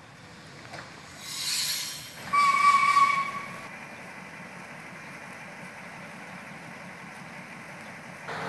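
Self-propelled railway crane car approaching and sounding one horn blast, a single steady tone lasting a little over a second, then running steadily as it rolls past.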